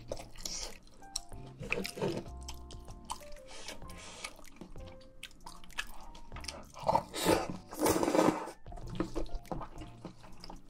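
Close-miked wet eating sounds: chewing with many small clicks and smacks, and a louder, longer noisy stretch about seven to eight seconds in. Soft background music plays underneath.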